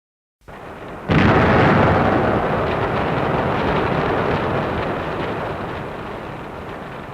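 Explosion sound effect: a softer lead-in, then a sudden loud blast about a second in, followed by a long, slowly fading noisy tail that cuts off near the end.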